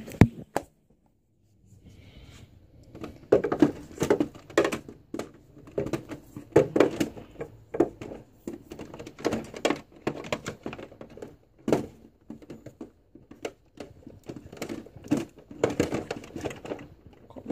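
Makeup items being handled and moved about on a shelf: irregular clicks, knocks and rustling, after a sharp click near the start and a brief hush.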